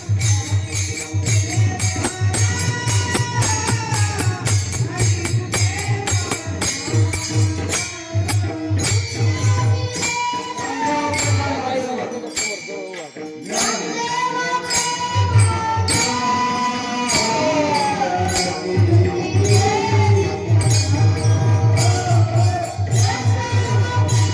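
Marathi Warkari devotional bhajan: a singer's ornamented, gliding vocal line over rapid clashing of small hand cymbals and a pulsing low drum. The low drum drops out briefly about halfway through, then returns.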